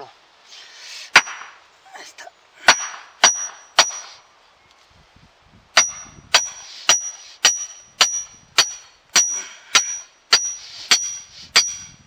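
Iron stake clanging as it is forced into stony ground: a few sharp metallic strikes, then from about halfway a regular run of about two strikes a second, each ringing briefly.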